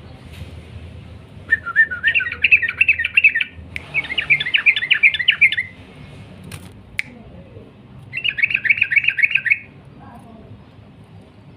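Yellow-vented bulbul (trucukan) singing its rapid chattering song in three bursts of about two seconds each, starting a second and a half in, about four seconds in, and about eight seconds in. A couple of sharp clicks fall between the second and third bursts.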